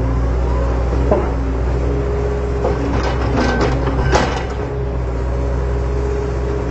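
Toy Huina RC excavator's electric motors running steadily as the boom and bucket move, with a few sharp crunching knocks of soil about three to four seconds in.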